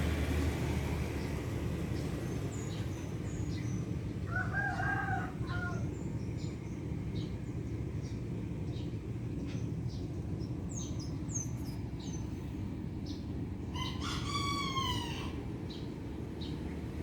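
A rooster crowing twice, each crow about a second and a half long, with small birds chirping in between, over a steady low background rumble.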